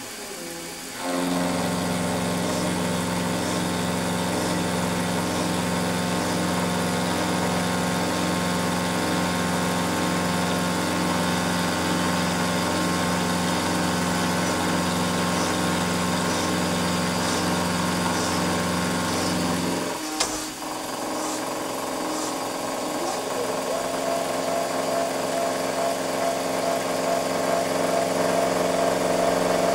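A milling machine's spindle running while the cutter is fed along the top edge of a metal block, cutting a chamfer: a steady motor hum with a clear pitch. About twenty seconds in there is a sharp click, the deepest part of the hum drops away, and the sound then builds slowly.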